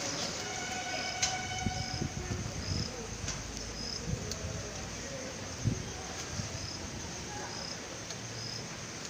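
Night insects chirping: short high chirps repeating roughly every second over a steady hiss, with a faint steady tone in the first second and a half and a few low knocks.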